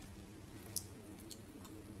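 A few faint, sharp clicks and soft squishing from a piece of cooked seafood being handled close to the microphone, the loudest click about three-quarters of a second in, over a low steady hum.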